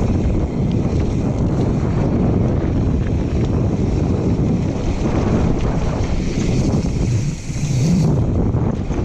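Mountain bike descending a dirt trail at speed: wind buffeting the action camera's microphone over the rumble of the tyres on dirt and gravel.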